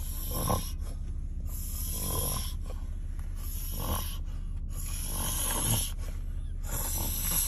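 Person snoring in a steady rhythm: about four snores, evenly spaced, roughly one every 1.7 seconds.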